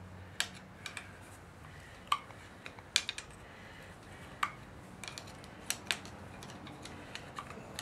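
Light metal clicks and taps of hand tools on a car engine's cylinder head during a tear-down, about eight sharp clinks spread irregularly over several seconds.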